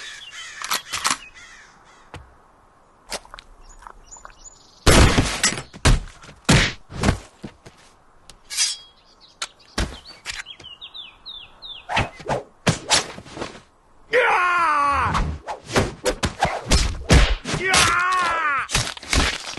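Cartoon fight sound effects: a rapid series of punch and body-impact hits with whooshes between them, and twice a long pained cry falling in pitch, about 14 and 17 seconds in.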